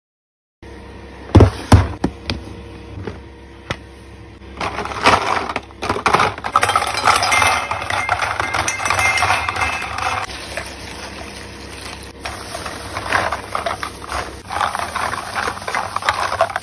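Small clear plastic pieces clinking and rattling in a metal bowl as they are handled: two sharp clicks at first, then continuous clattering from about four and a half seconds in.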